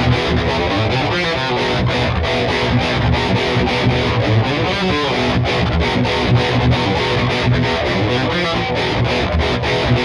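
Epiphone SG G-400 solid-body electric guitar played through a distorted tone: a continuous run of picked notes and chords with a few sliding notes.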